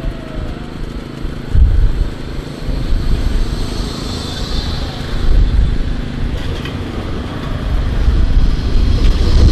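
Blackpool Flexity 2 tram gliding past at close range. A high whine swells and fades in the middle, over gusty low rumbling of wind on the microphone.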